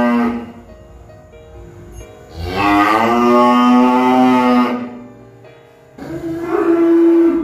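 Cow mooing in three calls. The first is the tail of a moo that fades out just after the start. The second is a long, steady moo of about two and a half seconds. The third is a higher-pitched moo near the end.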